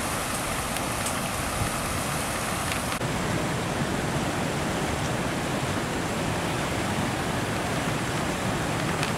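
Steady rush of water pouring over a low concrete weir into a pond, a little duller after about three seconds.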